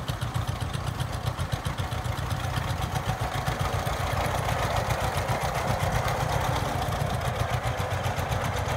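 1939 John Deere H's two-cylinder engine running with an even, rapid exhaust beat as the tractor drives by, getting louder from about halfway through as it comes close.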